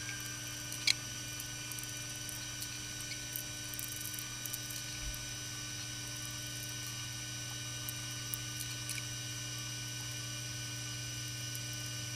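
Steady electrical hum with a faint buzzy whine, and a few small faint clicks, the sharpest about a second in.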